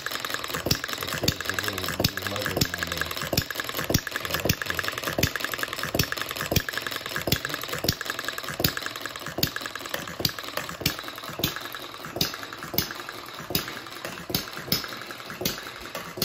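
Model hit-and-miss engine running, its flywheels turning over with an even rhythm of sharp clicks, about three a second, some clicks louder than others.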